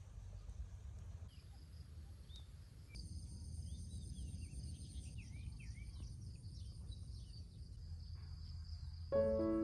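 Outdoor ambience of steady high-pitched insect drone over a low rumble, with a bird chirping in short rising and falling calls from about three seconds in. Piano music starts right at the end.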